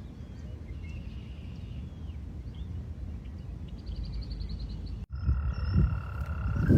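Small birds chirping, with one quick rapid trill of about ten notes around four seconds in, over a low rumble of wind on the microphone. After an abrupt break about five seconds in, a frog's long steady trill sets in, with louder low thumps that are loudest near the end.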